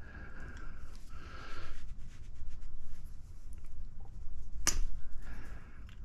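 Pliers clicking and scraping against the small metal parts of a magnetron cathode while trying to pull a piece out, with one sharp snap late on. Breathing can be heard in between.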